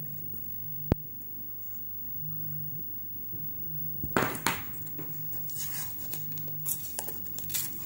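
Clear sticky tape being pulled, torn and crinkled as it is wrapped around the joint of two thin wooden sticks, in several short rasps during the second half. A single sharp tap about a second in.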